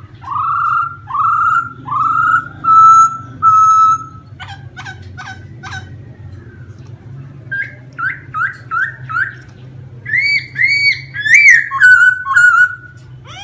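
Laughingthrush singing loud, clear whistles. It opens with a run of six rising whistled notes, gives a few quick chips, then a fast series of short hooked notes and, near the end, louder, higher phrases.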